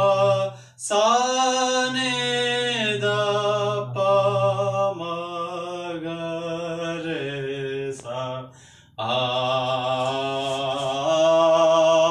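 A man singing unaccompanied in long held notes that slide in pitch. He breaks off for breath about a second in and again shortly before nine seconds.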